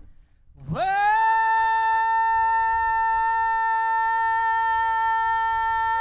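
A single high musical note slides up into pitch under a second in and is then held dead steady, with no wavering, for about five seconds. A short downward slide enters near the end.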